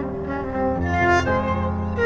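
Background music: a slow string piece of long held notes, with a deep bass note entering about a second in.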